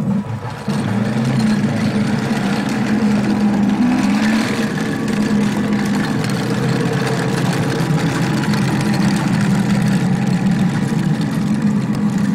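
Radio-controlled 1/6 scale Tiger tank running, with a steady engine sound that rises briefly in pitch about four seconds in.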